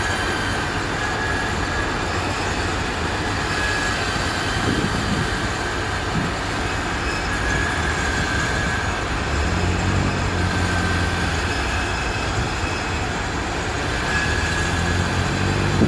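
Rice-loading conveyor belt running, with a steady clatter of grain pouring off it and a thin steady high whine from the machinery. A low diesel engine hum underneath strengthens about two thirds of the way through.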